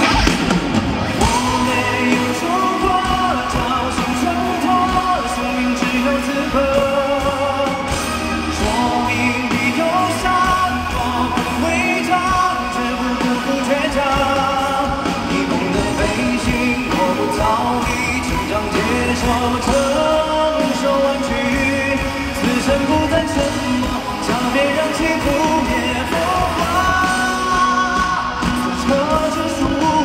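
A male singer's voice carrying a slow pop-ballad melody over band accompaniment, sung live.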